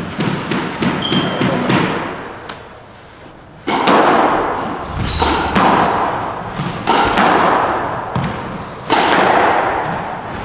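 Squash rally: the ball cracking off rackets and the court walls, a hard hit every second or two, each ringing in the echoing court, with short sneaker squeaks on the wooden floor. The hits begin a little over a third of the way in, after a quieter pause between points.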